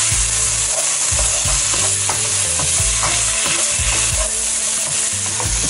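Chicken, long beans and red chillies sizzling in red curry paste in a nonstick pan, stirred with a wooden spatula: a steady frying hiss with repeated scraping and knocking strokes of the spatula against the pan.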